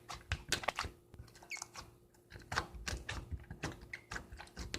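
Slime being squished and pulled by hand, giving irregular wet clicks and small pops.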